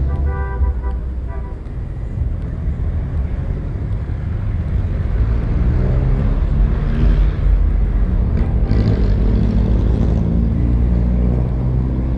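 Roadside traffic with a motor vehicle's engine running close by, its pitch rising slightly about five seconds in and then holding steady over a constant low rumble. A few short beeps sound near the start.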